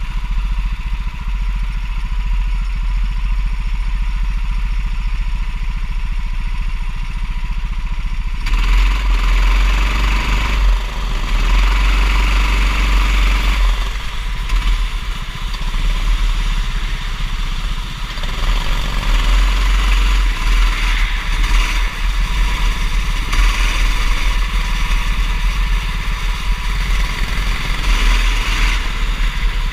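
Go-kart engine running at a steady speed, then from about eight seconds in revving up and down as the kart drives, with a loud rushing hiss over it.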